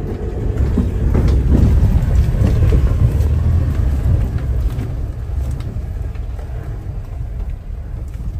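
Vehicle driving on a rough mountain road: a steady low rumble of engine and road noise, swelling about a second in and easing slightly after the third second.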